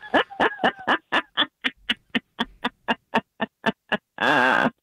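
Long cackling laugh in imitation of Kamala Harris's laugh: a run of short 'ha' bursts that gradually slow, ending in a drawn-out wavering 'ahh'.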